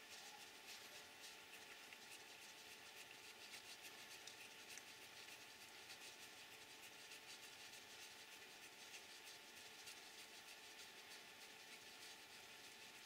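Near silence with faint rubbing and scratchy ticking of small metal and plastic parts as a radio-control car oil shock absorber is twisted and screwed together by hand.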